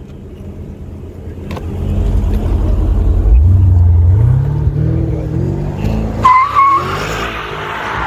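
Porsche Panamera Turbo's twin-turbo V8 revving hard as the car is spun, its pitch climbing in the first few seconds. About six seconds in the tyres break into a squeal and skid. The driver says traction control is not turning fully off and keeps cutting in.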